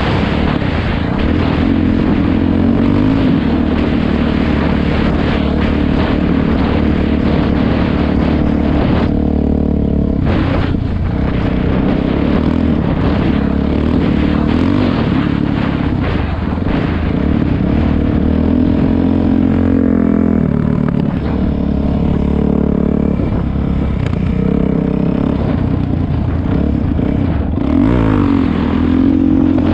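Dirt bike's single-cylinder four-stroke engine running at riding speed along a dirt road, its pitch shifting with the throttle. The throttle eases off briefly about nine seconds in and opens up again near the end.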